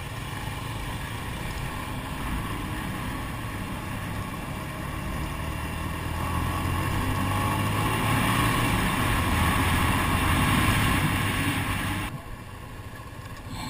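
Motorcycle running on the road with wind noise on the helmet camera. The sound grows louder about halfway through, then drops off sharply near the end.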